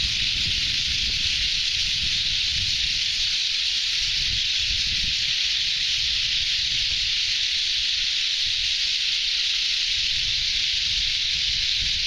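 A huge flock of small birds calling all at once, merging into a steady, dense wash of high-pitched noise, with low rumbles of wind on the microphone now and then.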